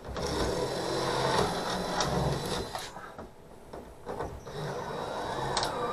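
Scraping and rubbing of a replacement port light frame as it is pressed and worked into its cut-out in the sailboat's cabin side, in two stretches with a short lull about three seconds in.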